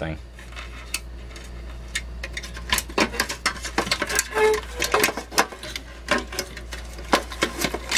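Irregular clicks, taps and rattles of hands working cables, connectors and circuit boards loose from a partly dismantled CRT monitor chassis, over a steady low hum.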